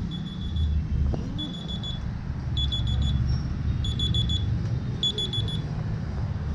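Smartphone alarm going off: short bursts of four or five rapid high-pitched beeps, about one burst a second, over a steady low rumble. The beeping stops shortly before the end as the alarm is swiped off.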